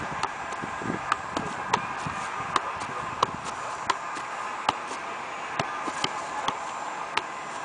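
Soccer ball being juggled: about a dozen short, sharp thumps of the ball against foot, thigh and chest, coming irregularly, roughly one every half to three-quarters of a second.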